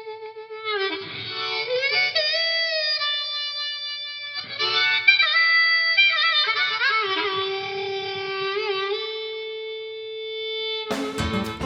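Background music: a slow solo melody on one instrument, with bent and long held notes. Strummed acoustic guitar comes in near the end.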